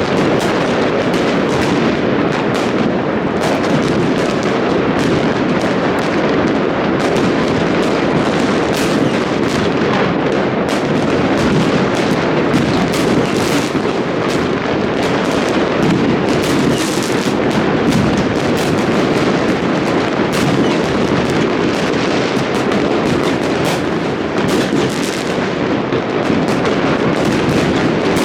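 Massed New Year fireworks going off without pause: a dense, continuous rumble of overlapping bangs and crackles, with sharper single reports standing out now and then.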